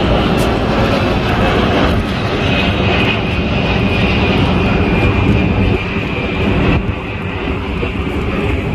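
Jet airliner passing low overhead: a steady, loud engine rumble with a high whine that comes in about two seconds in and eases off about seven seconds in.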